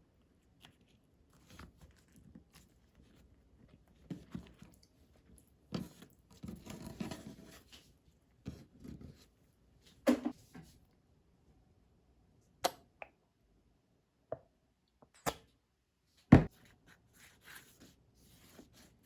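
Quiet handling noises: soft rustling, then a few sharp separate knocks or clicks, the loudest about 16 seconds in.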